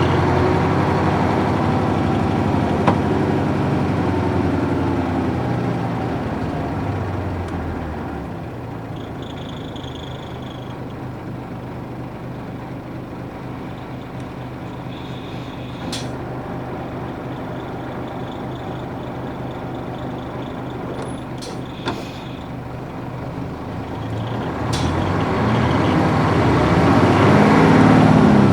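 Nissan Diesel UA440 city bus's PF6 diesel engine, heard from inside. Its note falls away as the bus slows to a stop, then it idles quietly for a long stretch with a couple of sharp clicks. Near the end it revs up again, rising in pitch and loudness as the bus pulls away.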